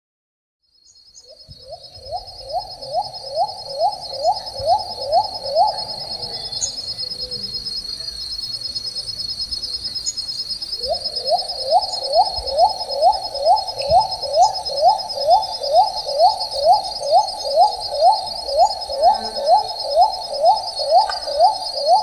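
Little cuckoo-dove calling: a series of short up-slurred hooting notes, two to three a second, which stops for a few seconds and then resumes. Insects trill steadily and high-pitched behind it.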